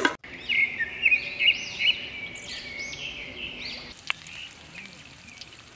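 Birds chirping repeatedly, quick rising-and-falling calls, for the first few seconds. About four seconds in, the sound changes to a faint steady hiss of hot oil frying green leaves in a wok.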